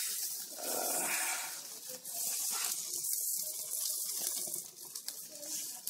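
Chicken pieces sizzling on a hot grill grate, a steady crackling hiss, as lemon juice is squeezed over them onto the hot metal. The sizzle dips briefly about three seconds in.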